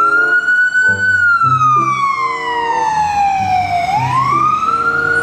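Ambulance siren wailing. The pitch climbs, holds briefly, then falls slowly for about three seconds and climbs again near the end, over light background music.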